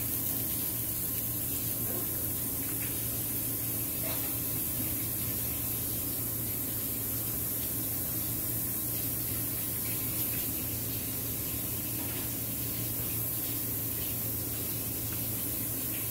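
Steady hissing noise with a low hum underneath, unchanging throughout, with a few faint ticks.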